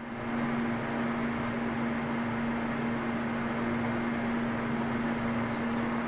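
Electric fan running steadily: a whoosh of moving air with a constant motor hum.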